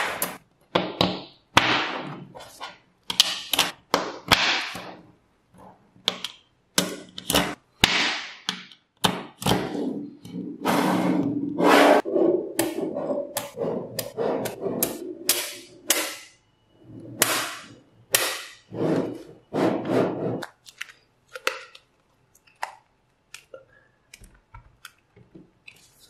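Small neodymium magnet balls clicking and clacking as they snap together into strips and blocks, with stretches of rattling as rows of balls slide and settle. The clicks are sharp and irregular and thin out to a few faint ones near the end.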